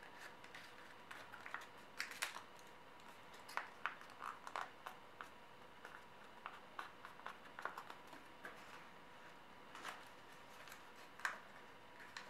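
Origami paper being folded and creased by hand: scattered soft crinkles, rustles and taps, strongest around two seconds in, around four seconds in, and near the end.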